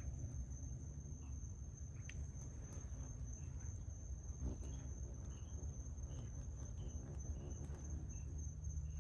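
Night insects trilling in one steady, unbroken high-pitched tone, over a low rumble on the microphone. Faint short chirps repeat about twice a second in the second half.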